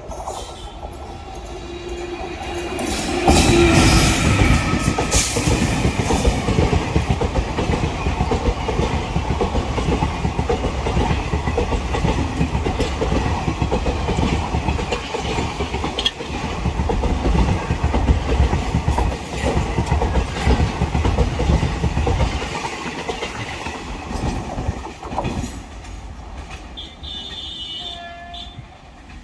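Express passenger train hauled by a WAP-1 electric locomotive passing at speed: it grows louder on approach, a horn sounds as the locomotive reaches the microphone about three seconds in, then the coaches' wheels rumble and clatter over the rail joints for nearly twenty seconds before the sound drops off and fades as the train goes away.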